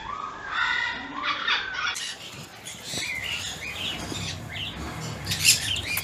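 Parrots squawking and chirping, with wing flaps as an African grey parrot lands on a hand. The calls are lower and smoother for the first two seconds, then turn to sharper, higher squawks and chirps.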